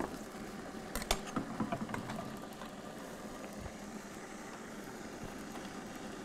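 A few light clinks of serving utensils against dishes in the first two seconds, over a steady low hum.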